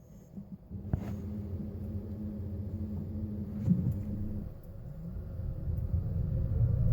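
2015 Fiat 500e electric car rolling, a low rumble from the front wheel and road that grows louder about five seconds in, with a faint rising whine near the end.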